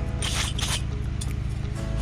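Two short hissing sprays of aerosol carb cleaner, one just after the other, blasted into the removed variable valve timing solenoid to clean out oil deposits.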